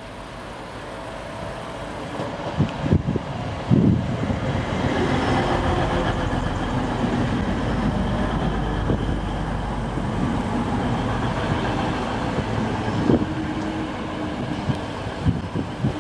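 Class 185 Desiro diesel multiple unit running alongside the platform. The engine and wheel noise builds over the first few seconds, then holds steady and eases a little near the end, with a few short low thumps.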